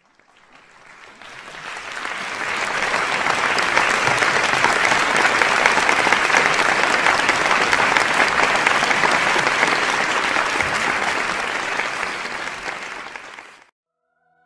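Crowd applauding, a dense patter of many hands clapping that fades in over the first two seconds or so and fades out near the end.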